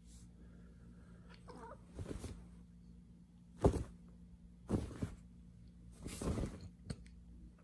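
Bedcovers rustling in short bursts with soft thumps as a cat scrabbles and pounces under a quilted coverlet, about five times, the loudest about three and a half seconds in.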